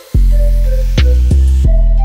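Background music: a deep sustained bass line under a melody of short struck notes.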